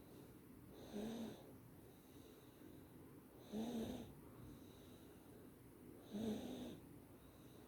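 A sleeping baby snoring: three short snores about two and a half seconds apart, each with a low pitched note.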